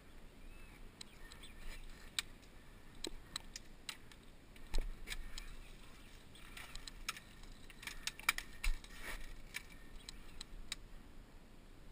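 Scattered faint, sharp clicks and light rattling, bunched more closely together in the middle stretch.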